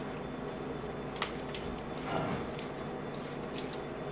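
Faint light clicks of a small ceramic dish being handled over a mixing bowl, one sharper click about a second in, over a steady low hum.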